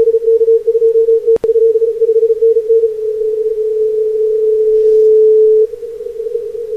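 Morse code (CW) signal received on 40 metres by a Flex 6700 software-defined radio through a narrow CW filter: a keyed tone of about 450 Hz over band noise, then a steady unbroken tone from about three seconds in that cuts off sharply. A single sharp click comes about a second and a half in.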